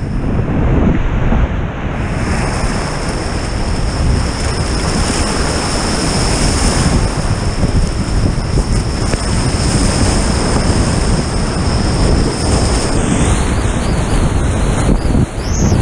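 Whitewater rapids rushing loud and steady all around a kayak running through them, heard close up.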